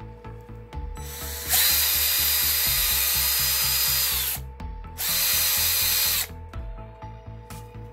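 Aimsak AD414R cordless drill's motor and gearbox run twice off the trigger switch: a run of about three seconds that slows near its end, then a shorter run of a little over a second. This is a bench test after the gear train was reassembled. Background music with a steady beat plays underneath.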